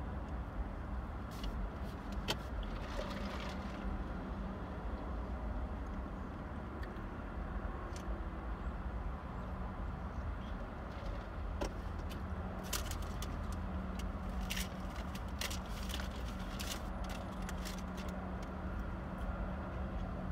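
Road traffic passing slowly, heard from inside a car's cabin over a steady low rumble and hum. Scattered light clicks and ticks come through, most of them in the second half.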